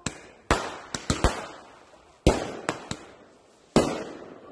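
Fireworks bursting overhead: about nine sharp bangs at uneven spacing, several close together in the first second and a half and then more spread out, each followed by a rolling echo.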